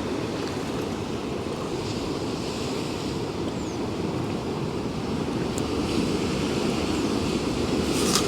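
Sea surf washing steadily, with wind rumbling on the microphone; a brief sharp click near the end.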